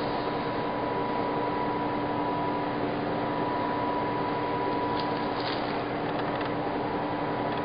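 Steady blower noise, likely the fan driving air up through the installation table, with a low hum. A thin high tone cuts out about five seconds in, and a few faint light ticks follow.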